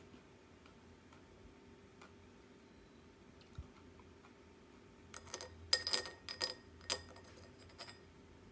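A cluster of sharp clicks and taps with a faint ring, from a small rice cracker knocking against a ceramic plate as it is picked up. The clicks come in a burst about five to eight seconds in, after a few faint ticks.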